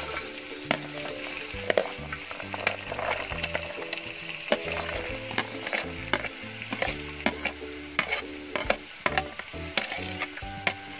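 Sliced shallots, garlic and ginger dropping into hot coconut oil and sizzling. A perforated metal spoon scrapes and taps against the plate as it pushes them off, making many sharp clicks over the frying.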